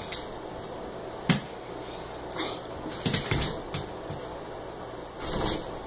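An American Eskimo puppy and a Chihuahua mix tussling against a glass storm door on a tile floor: scattered knocks and thumps of paws and bodies hitting the door and floor, the sharpest about a second in, a quick run of knocks around the middle and a scuffling burst near the end.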